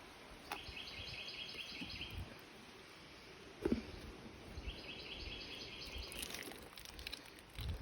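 Two short, rapid pulsed trills from a small wild animal calling, each lasting about a second and a half, a few seconds apart, over faint outdoor background noise. A soft low thump falls between them.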